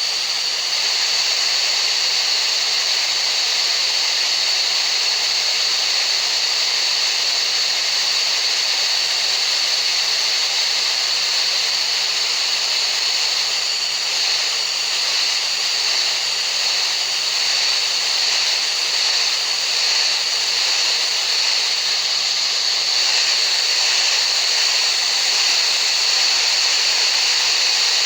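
Tinnitus masking sound: a steady, even hiss, strongest in the upper-middle and high range, with a steady high tone running through it.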